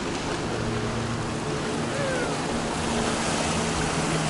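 Small waves washing and splashing over shoreline rocks, with the steady low hum of a boat engine running underneath.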